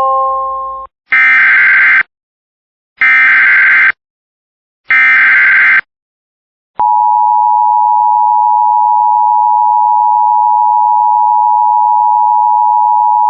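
Emergency Alert System tones: a rising chime ends about a second in, then three one-second bursts of SAME digital header data about two seconds apart, then the steady two-tone EAS attention signal begins around seven seconds in. Together they open a new alert, here a flood warning.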